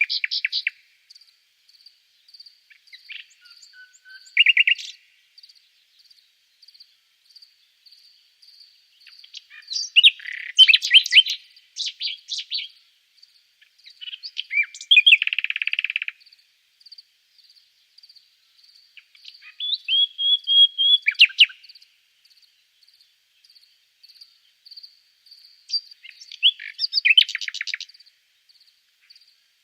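Nightingale singing: separate phrases of fast trills, rapid repeated notes and a buzzy note, with pauses of a few seconds between them. A high insect chirp pulses steadily underneath.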